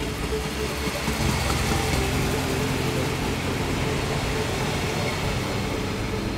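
Red regional multiple-unit train running past on the tracks. Its low rumble and wheel hiss swell about a second in and hold while it passes.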